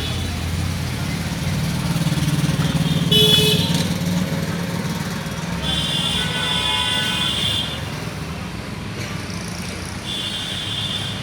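Street traffic: vehicle engines running steadily, with horns honking three times, a short toot about three seconds in, a longer blast from about six to seven and a half seconds, and another short toot near the end.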